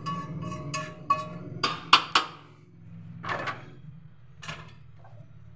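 Background music with a plucked, knocking beat for about the first second, then a quick clatter of knocks on a cooking pot and two short utensil scrapes in the pot.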